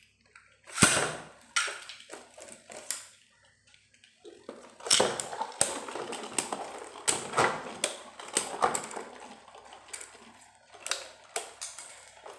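Two Beyblade Burst tops, Bloody Longinus and Infinite Achilles, battling in a cardboard stadium. A sharp launch sound about a second in is followed, from about five seconds, by an irregular run of sharp clicks and knocks as the spinning tops clash with each other and the walls.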